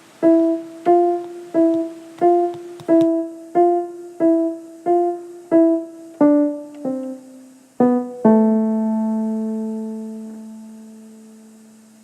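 A slow piano phrase of single notes, about one and a half a second. The line steps down near the end to a low final note that is left ringing and fades away.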